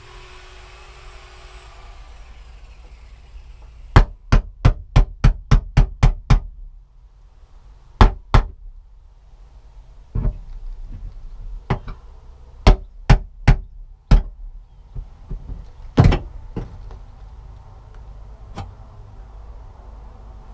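A series of sharp knocks: seven in quick succession, about three a second, then a pair, then scattered single knocks with one louder strike about two thirds of the way in.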